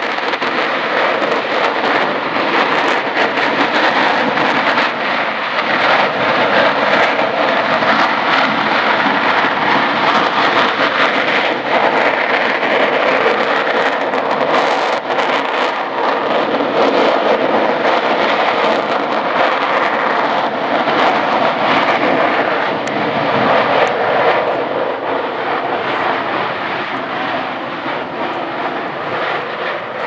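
Stromboli volcano in a sustained strombolian eruption: gas and lava jetting from the vent as a loud, steady rushing noise, with many small crackles scattered through it.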